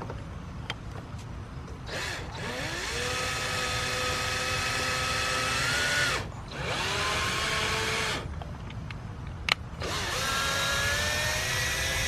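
Electric hand drill drilling holes in a car's front bumper to mount canards, run three times: a long run of about four seconds starting about two seconds in, a short one, and another near the end, each spinning up in pitch and then holding steady.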